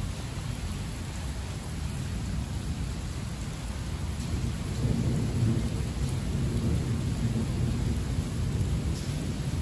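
Heavy rain falling steadily, with a low rumble of thunder that swells about halfway through and keeps rolling.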